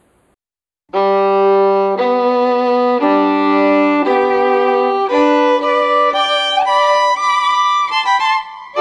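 Violin music begins about a second in after a moment of silence: long held notes roughly one a second at first, then quicker notes with slides between them.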